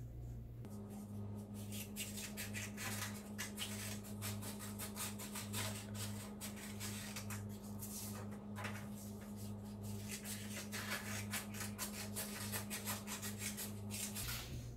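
Scissors cutting through sheets of paper: many short crisp snips with paper rustling, over a steady low hum.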